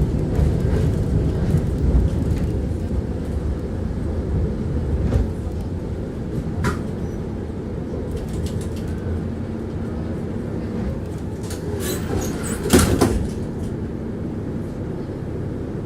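Tram running along the track, heard from inside the passenger car: a steady low rumble with scattered clicks and knocks of the wheels on the rails, and a louder cluster of clanks about thirteen seconds in.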